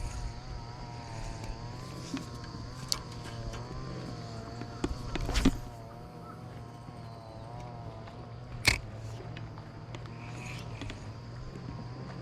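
Steady high insect chirring over a low engine hum that wavers slightly in pitch, with a few sharp clicks.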